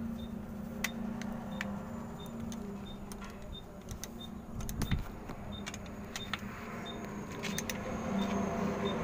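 A metal hand tool clicking and scraping against lead battery terminals and a connector plate while a second truck battery is being wired in. The clicks are irregular, with a louder knock about five seconds in, over a steady low hum.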